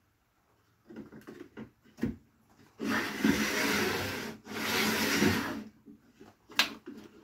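Handling noises from unpacking a table saw: scattered knocks and clicks, then two long scraping, rustling sounds of a second or so each, with a sharp click near the end.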